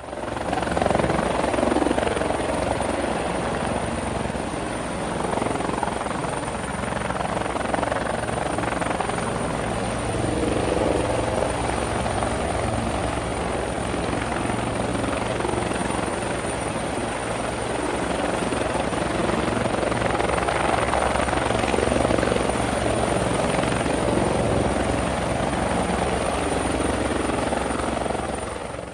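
Helicopter running steadily, its rotor blades giving a fast, even chop under engine noise, with a thin high whine over it. It fades out at the very end.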